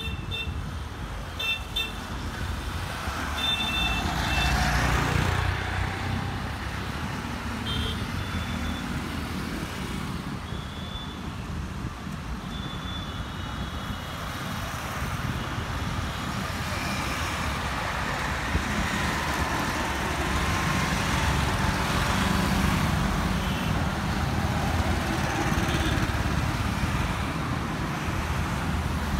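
Road traffic on a wide multi-lane road: cars, motorcycles and auto-rickshaws driving past, the rumble swelling as vehicles go by, about five seconds in and again over the second half. Short horn toots sound several times in the first half.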